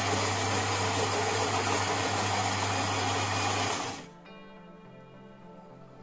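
Philips 2200 LatteGo espresso machine's built-in ceramic grinder grinding coffee beans at the start of a brew, a loud steady whirr with a low motor hum that stops abruptly about four seconds in. Soft background music remains after it stops.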